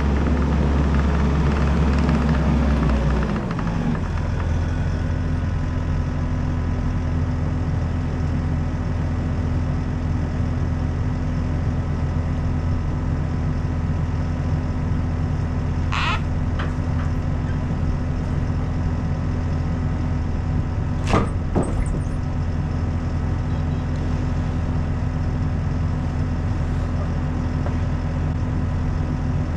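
A machine engine running steadily, settling to a lower speed about three and a half seconds in. Two short sharp clanks come later, one about halfway through and another a few seconds after.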